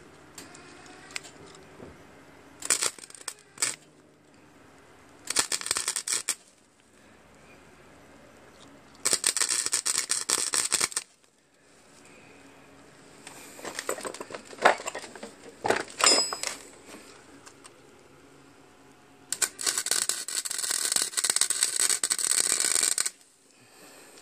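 Wire-feed welder arc crackling on the steel drag link rod in separate bursts as welds are laid: short ones early on, then runs of a second or two, and the longest, nearly four seconds, near the end.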